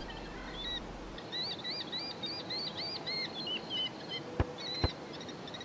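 Small birds chirping, a quick run of repeated high chirps through the middle, followed by two short clicks near the end.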